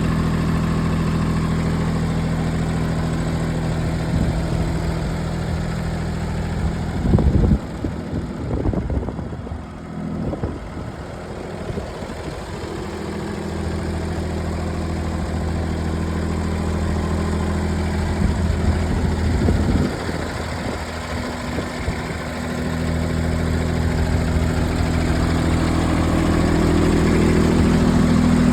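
John Deere 455 garden tractor's three-cylinder diesel engine running steadily. It turns uneven and quieter for a few seconds about a quarter of the way in, then rises in pitch near the end as it speeds up.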